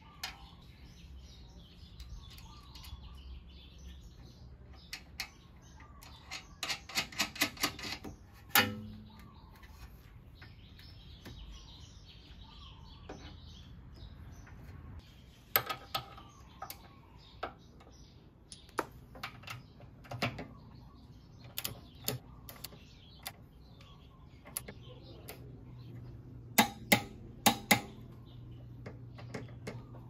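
Hand tools clicking and knocking against metal scooter parts: a quick run of even clicks, one sharp metallic knock with a short ring, then scattered clicks and taps. Small birds chirp faintly in the background.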